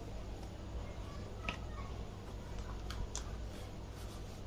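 Packets being handled: a handful of light clicks and taps over a low steady hum.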